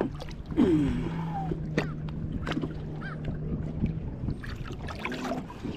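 A boat motor humming steadily at a low pitch, stopping about four seconds in, with a short wordless voice sound and a few light knocks near the start.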